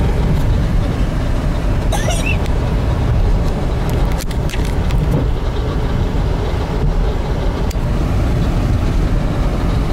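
Steady low rumbling noise, with one brief high rising squeak about two seconds in.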